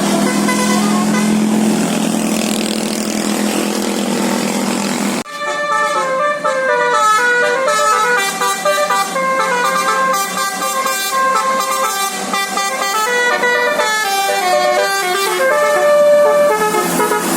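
A bus's telolet horn sounding steadily, then after a sudden cut about five seconds in, a basuri multi-tone bus horn playing a tune in quick stepped notes.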